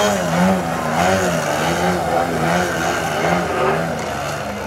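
Engine and propeller of an Edge 540 radio-controlled aerobatic model plane hovering nose-up, its pitch wavering up and down about twice a second as it holds the hover.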